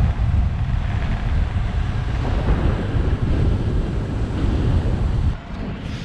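Wind rushing over the microphone of an action camera on a moving road bike, a steady low buffeting. It drops suddenly to a quieter rush about five seconds in.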